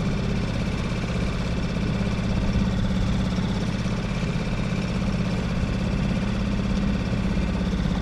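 Boat's outboard motor running steadily under way, a constant even engine drone.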